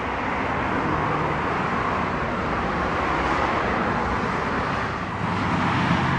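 Steady roar of road traffic, an even rushing noise with a faint low hum underneath.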